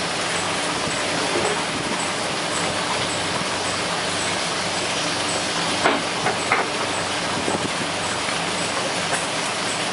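Steady drone of a boat's machinery with a constant hiss over it, and a few sharp clicks about six seconds in.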